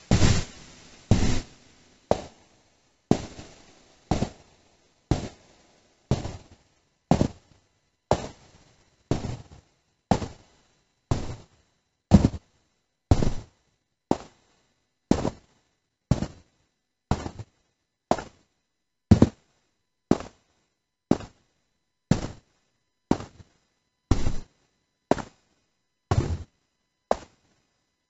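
A series of single footsteps synthesised by a WaveGAN neural network at successive stages of its training, one about every second. The first few are smeared with hiss; the later ones are short, clean footstep impacts.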